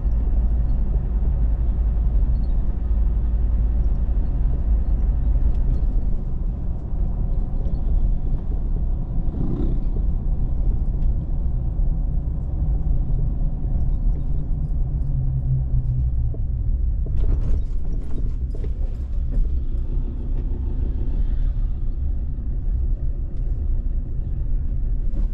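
Car driving along a road: steady low rumble of engine and tyres, with a few brief knocks about seventeen seconds in.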